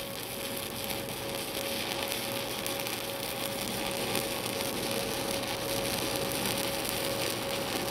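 Stick-welding arc of a 7018 electrode burning steadily as a bead is run on steel plate: a continuous crackling, frying sizzle over a steady faint hum, slowly growing a little louder.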